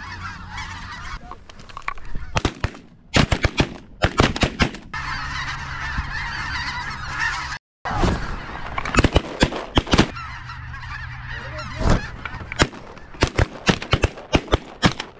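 A large flock of snow geese calling continuously overhead, a dense, constant chatter of honks, cut through by repeated volleys of shotgun fire, many shots in quick clusters.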